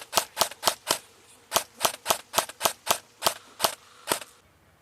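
Airsoft rifle firing single shots in quick succession, about four a second: a string of five, a brief pause, then about eight more.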